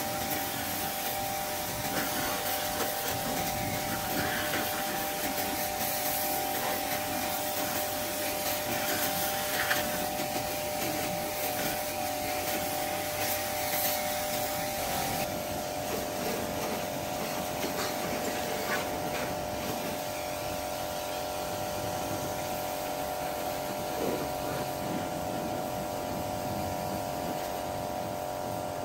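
A small electric motor-driven tool running steadily, a continuous hum over a hiss. Its tone shifts slightly about halfway through.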